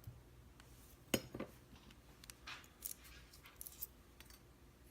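Small metal lock parts being handled: a sharp click about a second in, then a scatter of lighter clicks and clinks.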